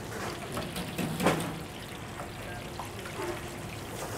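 Breaded shrimp deep-frying in a commercial fryer basket, the oil at 350 degrees sizzling and bubbling steadily. A short louder sound comes about a second in.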